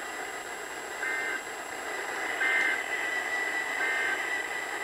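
Three short bursts of Emergency Alert System digital data tones, about a second apart, over steady broadcast static. The three evenly spaced short bursts match the EAS end-of-message signal that closes a severe thunderstorm warning broadcast.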